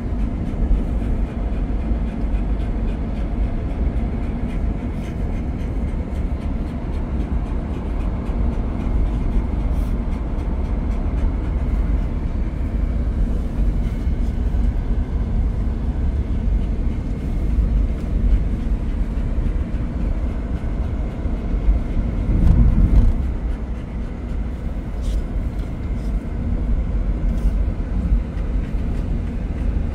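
Steady road and engine noise inside a moving car's cabin, a low rumble with tyre hiss. About 22 seconds in, the rumble swells briefly louder.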